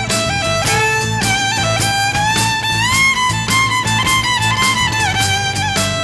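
Violin played as a fiddle, carrying a sustained, sliding melody with vibrato over a steady percussive beat; the melody glides up about halfway through and settles back down near the end.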